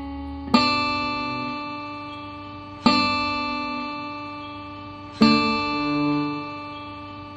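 Guitar trio, two nylon-string classical guitars and an electric guitar, strumming three chords about two seconds apart, each left to ring and fade: the closing chords of a chord-progression study in D major.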